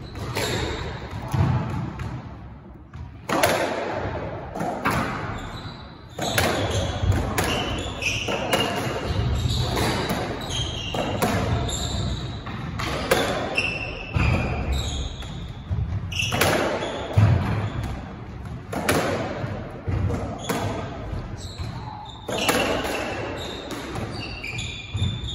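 A squash rally: racquet strikes and the ball smacking off the walls about once a second, each hit echoing round the court, with short squeaks of court shoes on the wooden floor between hits.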